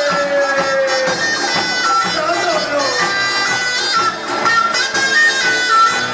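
Bottari pastellessa music: wooden barrels, vats and iron sickles struck together in a steady driving beat. Over it runs a reedy wind melody in stepped notes, above a steady drone.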